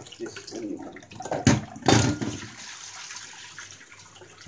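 Rinse water sloshing in a stainless-steel saucepan of red lentils, with two loud sudden splashes about a second and a half in, then the cloudy rinse water being poured off into the sink.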